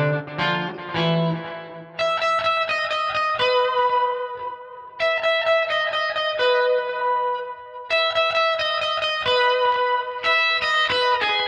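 Electric guitar played through a Line 6 POD Go with an octave-up pitch-shift block (+12 semitones, mix about 43%) blended in to thicken the tone. A few low notes come first, then a high lead phrase is played several times over.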